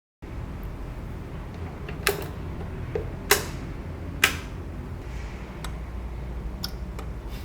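Vinyl surface noise from an Audio-Technica AT-VM95E stylus in the lead-in groove before the music: a steady low rumble and hiss with scattered crackles. There are three sharp pops about two, three and four seconds in.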